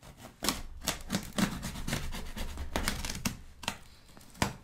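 Cardboard shipping box being cut open with a knife through its packing tape and its flaps pulled apart: a quick run of scratchy cuts, rips and knocks, with one sharp knock near the end.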